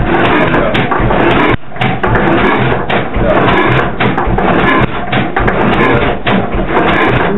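Old Langen & Wolf horizontal stationary mill engine running unloaded, a loud continuous mechanical clatter with repeated heavy knocks; the engine is being held back by hand so it doesn't speed up too much.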